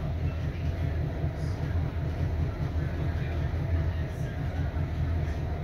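Interior noise of a 3100 class hybrid diesel railcar under way: a steady low rumble from its diesel engine and wheels on the rails.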